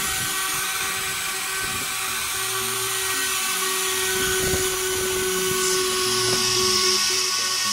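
Handheld electric plunge router running at speed with its bit cutting a groove into an ash-veneered MDF door panel: a steady, high whine mixed with the noise of the cut.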